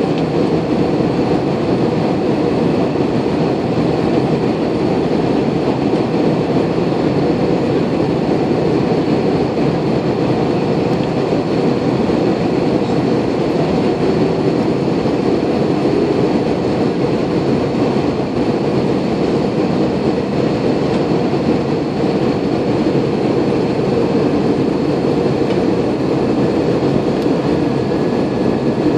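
Steady cabin noise inside a jet airliner in flight: a constant rumble of turbofan engine and rushing airflow, with faint steady whining tones above it.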